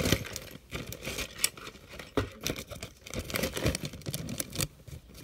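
Irregular rustling and crinkling with small knocks and clicks, as of belongings being handled and packed into a bag. The loudest knock comes right at the start.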